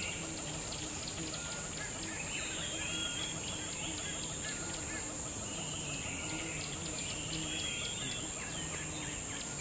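Nature ambience sound effect: a steady high insect drone with birds chirping and trilling throughout.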